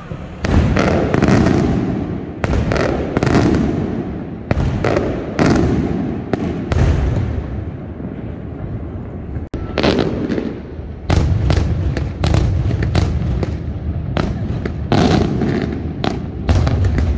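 Fireworks going off in a rapid series of loud bangs, one or two a second, each with a rumbling echo. There is a momentary break about nine and a half seconds in, then the bangs carry on.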